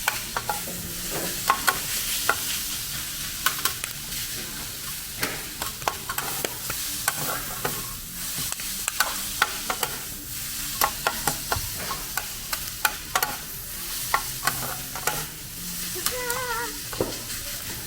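Pork belly frying and sizzling on a large iron griddle, a steady hiss with frequent sharp clicks and pops. A brief wavering tone sounds near the end.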